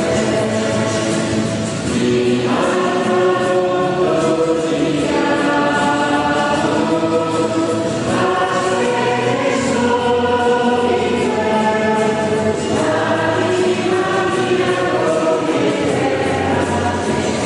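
Choir singing a hymn in a large church, holding notes with the chords changing every couple of seconds.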